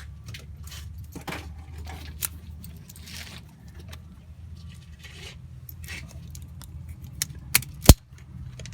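Small metallic clicks and jingling of hand tools and wiring parts being handled, ending in three sharp clicks, the last and loudest close to the end. A steady low hum runs underneath.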